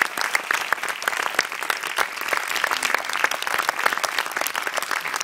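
Audience applauding, a dense and steady mass of handclaps.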